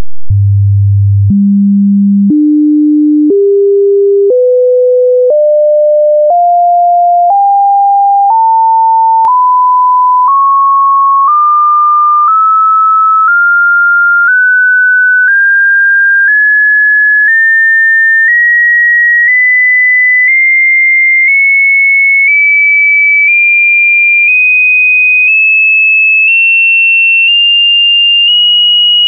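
Hearing-test sine tone climbing in steps of about 100 Hz roughly once a second, from around 100 Hz up to about 2.8 kHz. A faint click sounds at each change of pitch.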